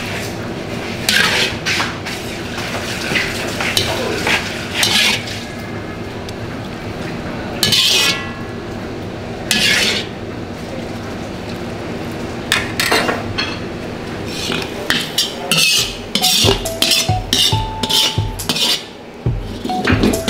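A metal ladle stirs and scrapes through milkfish in sweet-sour sauce in a nonstick wok, knocking and clinking against the pan over a steady hiss from the cooking pot. About three-quarters of the way through, background music with a steady beat comes in.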